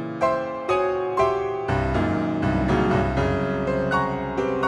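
Background piano music: a slow melody of single notes, about two a second, over held lower notes.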